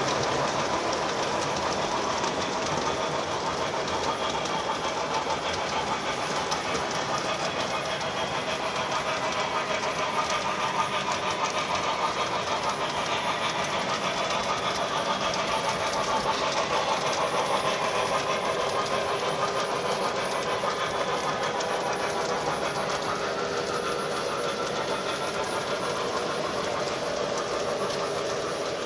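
O scale model freight train running along the layout's track: a steady rumble of metal wheels on rail.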